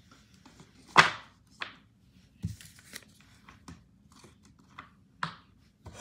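Scattered knocks and clicks of small objects being handled and set down, the loudest about a second in, followed by several lighter ones.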